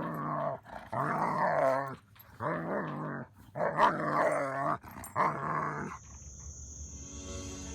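A dog vocalising in five drawn-out, wavering calls of about a second each, the pitch bending up and down within each call, with short pauses between them. Near the end the calls stop and a quieter steady high-pitched chirring sets in.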